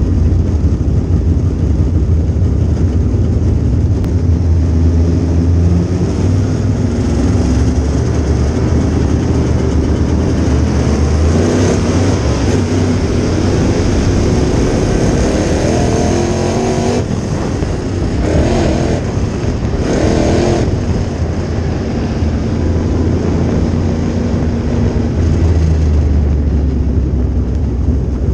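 Crate late model dirt race car's V8 engine running hard at racing speed, heard from inside the cockpit. Its note climbs for several seconds through the middle, then falls off and picks back up twice before running steady again.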